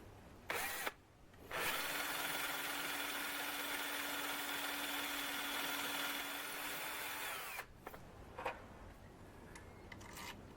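Power drill with a stepped 6 mm bit that has a 3 mm point, spot-drilling into the casting of a mini lathe's cross slide. It gives a short blip about half a second in, then runs steadily for about six seconds before spinning down.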